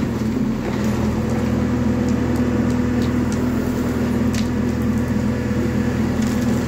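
JCB 3DX backhoe loader's diesel engine running steadily under load while the backhoe arm digs and lifts a bucket of soil, a loud even drone with a few faint clicks from the digging.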